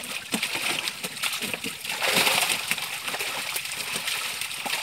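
Live fish thrashing in a gathered net in shallow water, a continuous spattering and slapping of splashes, loudest about two seconds in.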